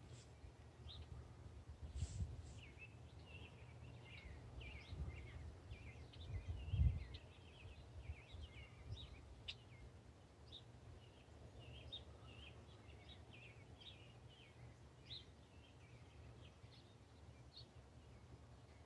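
Songbirds chirping, many short calls all through, under low rumbling gusts of wind on the microphone, the strongest about seven seconds in.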